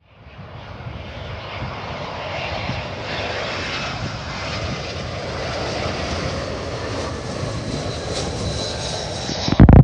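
Airbus A320-232 jet engines (IAE V2500) on landing approach: a steady jet noise that swells in over the first couple of seconds, with a thin high whine growing stronger near the end. Just before the end comes a brief, very loud low thump, the loudest sound here.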